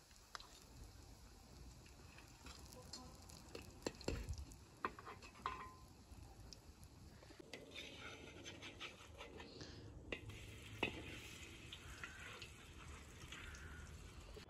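Pumpkin pancakes frying faintly in a wide pan, with a metal spatula now and then tapping and scraping against the pan and the plate.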